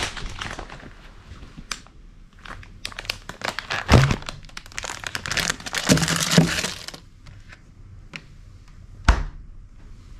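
Crinkling and rustling of things being handled, with scattered clicks and a few sharp knocks, the loudest about four seconds in and near the end.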